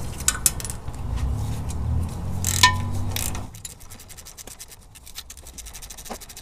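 Metal scraping and rapid clicking as the 12 mm bolts are worked out of a rear sway bar bracket on the axle. A low steady hum runs under the first half, then a fast run of light clicks follows.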